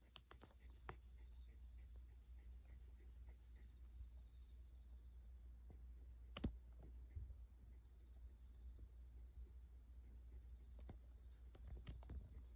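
Insects trilling in one steady high-pitched tone throughout, over a low rumble, with a few soft clicks and one sharper click about six and a half seconds in.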